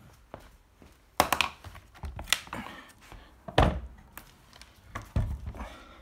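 A handful of loud knocks and thunks, spaced about a second apart, as an electric skateboard is handled and turned over on a table.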